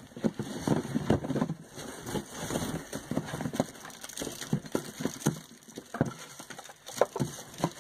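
Plastic packaging crinkling and rustling, with irregular clicks and taps as cosmetic products are handled.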